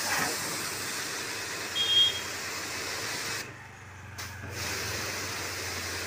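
Water spraying with a steady hiss from a homemade pressure-wash jet, a gas-stove burner nozzle on a quick-connect socket. The hiss drops out briefly about three and a half seconds in, a low hum runs beneath it from then on, and a short high tone sounds near two seconds in.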